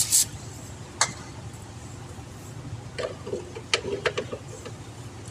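A brief hiss of aerosol penetrating oil being sprayed onto a rusted bolt right at the start, then a single metallic click about a second in and a few light metal clinks and rattles from about three to four and a half seconds in as tools are handled against the truck's underside.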